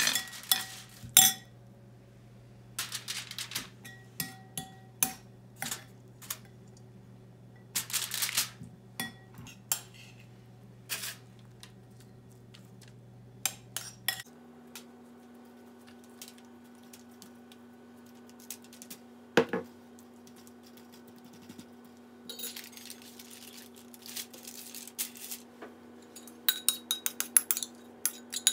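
Scattered clinks of a metal spoon against a plate and bowl, with short crinkles of aluminium foil as raw fish is handled on it. Near the end comes a quick run of clinks as the spoon scrapes chopped green onion and chili out of a bowl.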